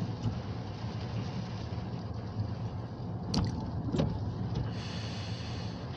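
Diesel locomotive of a grain hopper train running as the train moves slowly through a freight yard: a steady low rumble, with two sharp clanks about half a second apart past the midpoint.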